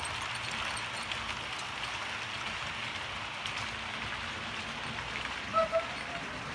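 Model railway trains running on track, a steady rattling hiss of wheels over rail joints. Two short high chirps come near the end.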